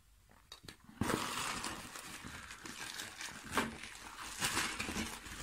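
Clear plastic zip bag rustling and crinkling as it is handled and lifted out of a cardboard box, starting about a second in, with a couple of sharper crackles.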